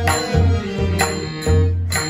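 Bhajan music led by a pakhawaj drum: deep, booming bass-head strokes alternate with sharp treble-head strokes over steady sustained tones.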